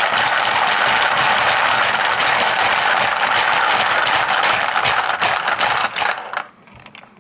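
Hungry Hungry Hippos game in play: the plastic hippo levers hammered rapidly, the hippos' heads clacking in and out and marbles rattling across the plastic board, a dense continuous clatter that stops about six seconds in.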